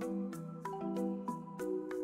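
Background music: a melody of short pitched notes over held lower notes, with a steady percussive tick about three times a second.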